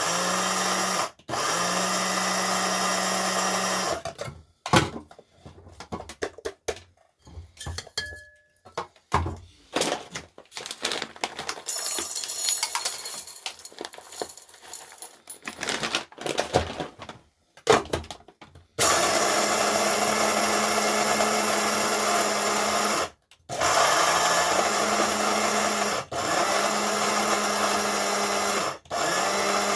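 Electric coffee grinder's motor running in bursts, with short stops about a second in and again near 23, 26 and 29 seconds. Between about 4 and 19 seconds the motor is off and there are scattered knocks and rattles of handling.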